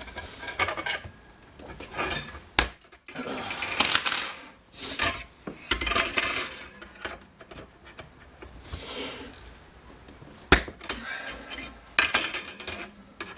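Hand cutters snipping through the steel wire of a metal rack: several sharp snaps as the wire gives, between metallic clinking and rattling of the rack being handled.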